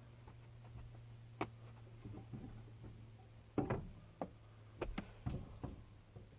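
Scattered light clicks and taps of small metal fasteners and hand tools being handled while the fuel pump is taken out, a few sharper knocks in the second half, over a steady low hum.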